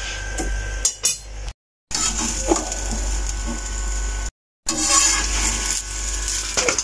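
Metal tongs clinking and scraping against a flat iron pan and a steel plate as a paratha is turned and lifted off, over a steady hiss. The sound cuts out to silence twice.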